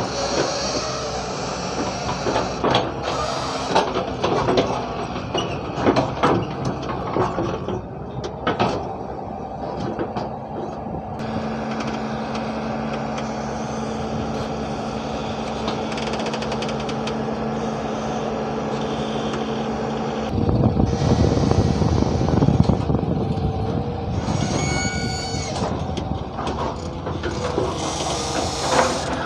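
Hyundai 170 hydraulic excavator's diesel engine running, with knocks and clatter of the machine working at first, then a steadier hum. About two-thirds through the engine grows louder, as under load, and a brief high squeal follows a few seconds later.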